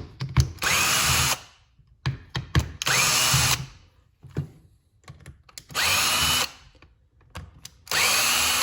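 A cordless power driver with a T20 Torx bit backing screws out of an impact driver's housing, in four short bursts. Each burst opens with a motor whine that rises as it spins up, then holds steady. Small clicks and knocks of screws and parts being handled fall between the bursts.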